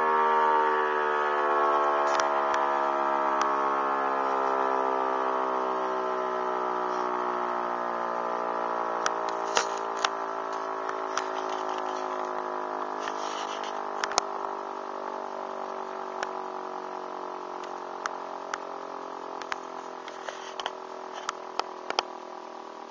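Rooftop electric motor siren winding down after sounding the fire-brigade alarm, its wail sliding slowly lower in pitch and fading away. A few sharp clicks come in from about nine seconds in.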